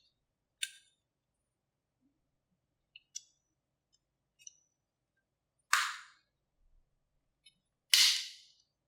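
A plastic tumbler and its packaging being handled: a few light clicks and taps, then two louder sharp snaps about two seconds apart, each trailing off over about half a second.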